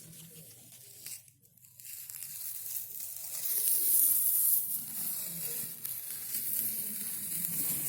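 Old wallpaper being peeled and torn off a wall: a long ripping hiss that starts about two seconds in and is loudest near the middle.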